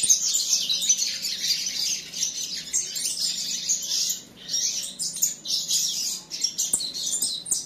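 Young caged finches chirping continuously: a dense run of short, high calls, with a brief lull about four seconds in.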